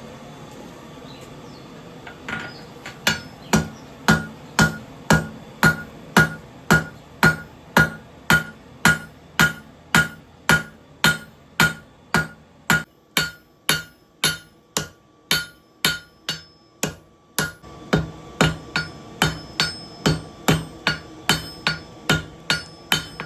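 Hammer striking metal in a steady rhythm, about one and a half blows a second, each blow leaving a metallic ring. The blows begin about two seconds in.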